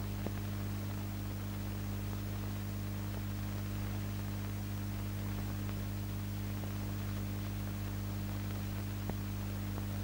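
Steady electrical hum with a constant hiss underneath, the background noise of an old film soundtrack with no other sound on it.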